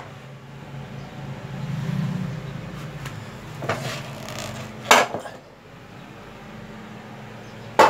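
Power tools being handled and shifted on a concrete floor: a few sharp knocks, the loudest about five seconds in and another near the end, over a steady low hum.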